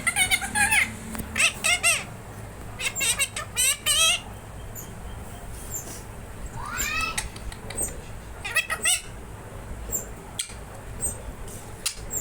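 Green ring-necked parrot (rose-ringed parakeet) calling in short bursts of high-pitched squawks and chatter, with one longer rising call about halfway through.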